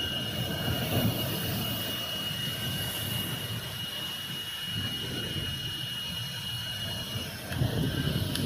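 Jet airliner engines running, a steady high whine over a low rumble; the whine stops about seven seconds in.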